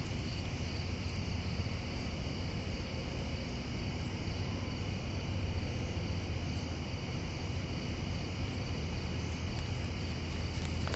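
Crickets chirping steadily, with a low, steady hum underneath.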